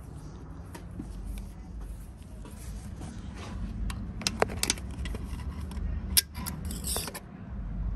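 Razor blade scraping old gasket material off the sealing surface of an LS engine block: irregular short scrapes and small metallic clicks, with a longer scratchy scrape about seven seconds in.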